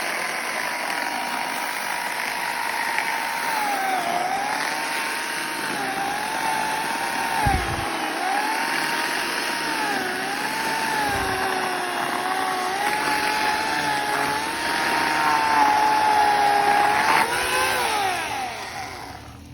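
Portland corded electric chainsaw running and cutting through wood. The motor's whine dips in pitch again and again under load, then winds down near the end.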